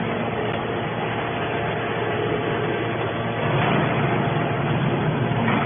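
TCM hydraulic scrap metal baler running: a steady hum from its hydraulic pump and motor over machinery noise. The sound grows somewhat louder and fuller about three and a half seconds in, as the hinged lid presses down.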